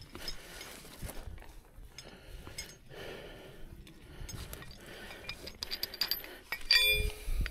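Dry brush rustling and snapping as someone pushes down through dense scrub, then near the end a few sharp metallic clinks with a brief ring from steel recovery rigging hardware knocking together.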